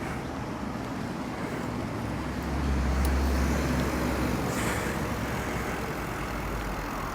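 Road traffic noise with a low rumble that swells about two and a half seconds in and eases off about two seconds later, as of a motor vehicle passing close by.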